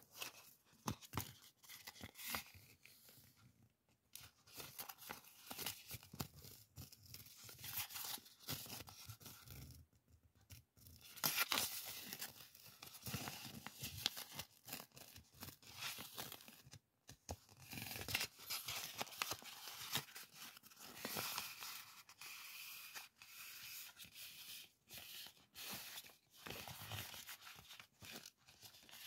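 A roll of printed masking tape being unrolled and handled, the tape peeling off the roll with an irregular crackly, tearing sound and paper rustling against the fingers.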